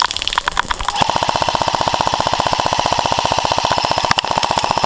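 Airsoft electric gun (AEG) firing: a few single shots, then about a second in a sustained full-auto burst at roughly twenty shots a second.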